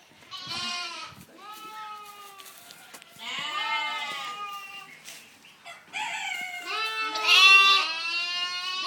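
Several young goat kids bleating, high pitched calls overlapping one another in three bouts: about half a second in, about three seconds in, and from about six seconds on, the last the loudest.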